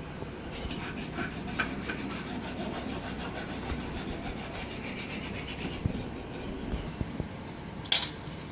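Fast, rhythmic rubbing from about half a second in until about six seconds, then one sharp click near the end.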